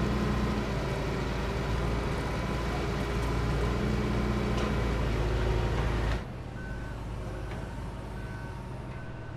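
Heavy diesel work vehicle running steadily with a deep engine hum. After an abrupt change about six seconds in, a quieter engine runs while a reversing alarm beeps at intervals of roughly half a second.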